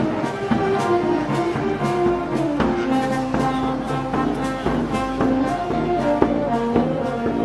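Festival wind band playing: brass carrying a melody of held notes over regular drum and cymbal strikes.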